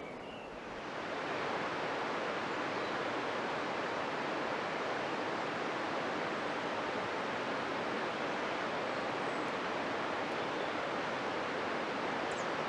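River Dart flowing: a steady rush of water that fades in over the first second or so.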